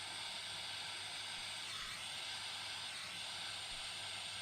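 Steady faint hiss with a low hum underneath.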